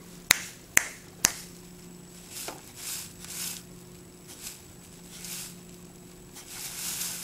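Three sharp hand claps in quick succession, then short whirs and finally a rising whir from a small Lego WeDo motor spinning a Lego plate, its speed set by how loud the sound reaching the laptop's microphone is.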